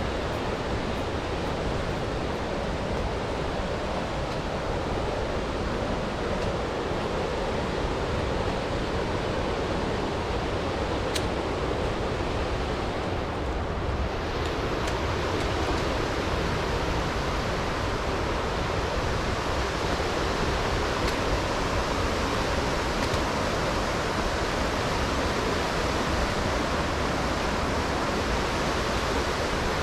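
Rushing water of a waterfall or fast creek, a steady, even noise with no change.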